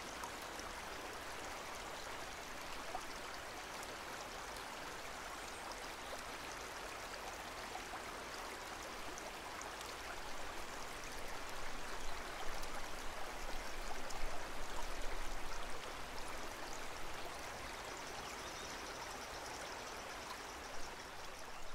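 Steady running-water trickle of an aquarium, a little louder and choppier from about twelve to sixteen seconds in.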